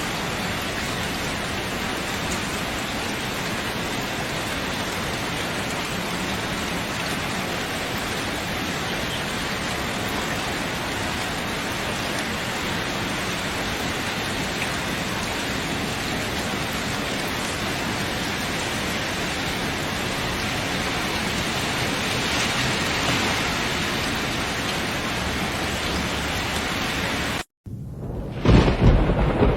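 Heavy rain pouring down in a steady, even hiss. After a brief cut near the end, a louder, uneven deep rumbling comes in.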